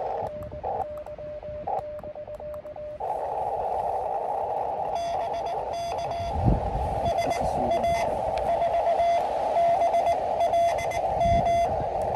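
Morse code (CW) from an Elecraft KX2 QRP transceiver: a single tone keyed on and off in dots and dashes. About three seconds in, a band of receiver hiss opens up and the keyed tone carries on over it, with a dull thump about six seconds in and another near the end.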